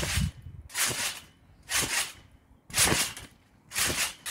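A person bouncing on a trampoline mat: a whooshing thump about once a second, five bounces in a row.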